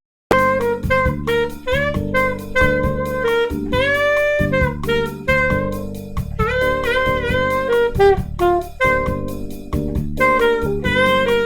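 Saxophone playing melodic phrases over a jazz backing track on an E minor chord, dwelling on the fourth, which sounds totally stable: an available tension over the minor chord. The sound cuts out for a moment at the very start.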